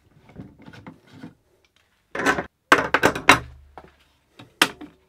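Steel F-clamps being handled on a wooden workbench: faint rubbing at first, then a cluster of sharp metallic knocks and clatter about two seconds in, and one more knock near the end.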